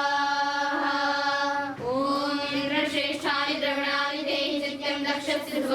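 Young girls chanting Sanskrit Vedic mantras together in unison, in a fairly high voice: one long held note, a short break and swoop in pitch a little under two seconds in, then the recitation runs on.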